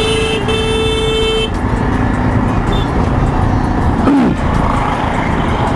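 Traffic and road noise from a moving motorbike, picked up by a helmet-mounted action camera. A vehicle horn honks for the first second and a half with a short break. A brief falling swoop comes about four seconds in.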